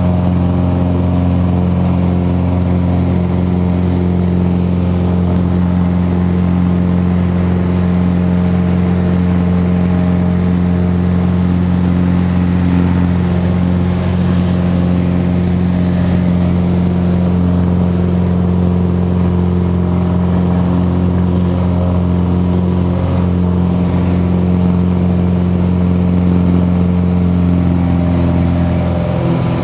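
Piper Cherokee Six's six-cylinder Lycoming engine and propeller at takeoff power, heard from inside the cabin: a loud, steady drone through the takeoff roll and climb-out, with the engine note changing just at the end.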